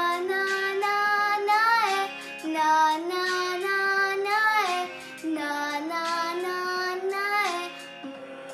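A young girl singing a song with musical accompaniment, in three phrases of held notes, each ending with a short rise and fall in pitch.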